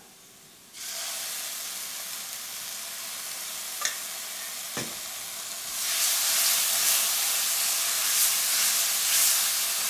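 Tomato hitting hot oil and spiced onions in a pan: a steady sizzle starts about a second in, with a couple of light knocks, and grows louder about six seconds in.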